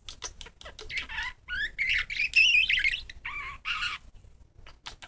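Budgerigar warbling: a quick run of chirps, rising squeaky notes and clicks, loudest about halfway through and trailing off near the end.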